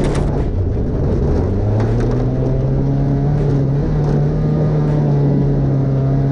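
Off-road race truck's engine running hard under throttle, heard from on board over the rough rumble of the truck on dirt; the engine note steps up about a second and a half in and then holds steady.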